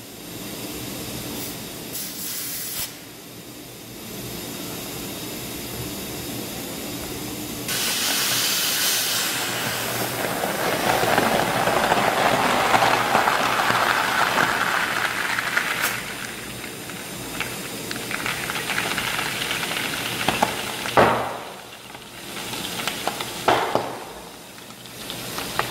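Compressed air hissing through a hose into a newly welded inflatable board as it fills. The hiss swells about eight seconds in, eases off after about sixteen seconds, and two short knocks come near the end.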